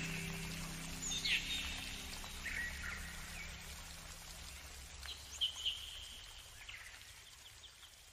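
Birds chirping outdoors: scattered short calls, a handful over several seconds, loudest about five and a half seconds in, over a faint steady outdoor hiss.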